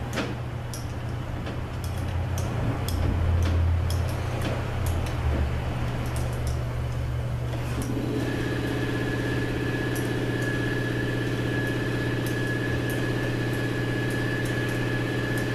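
Steady workshop machine hum with scattered light metallic clicks as a 10-32 tap is turned by hand into the rivet holes of a steel clutch drum. About eight seconds in, another machine starts and runs on with a steady high whine.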